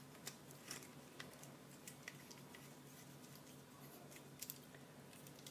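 Faint, scattered clicks and taps of a plastic phone clamp and a small metal mini tripod being handled as the clamp is screwed onto the tripod's ball head, over a low steady hum.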